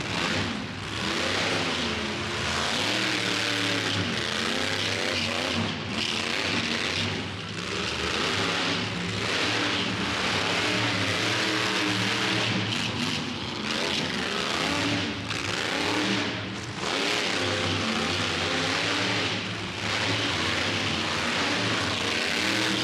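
Monster truck engine revving hard over and over, its pitch climbing and falling as the throttle opens and lifts, with brief dips every few seconds.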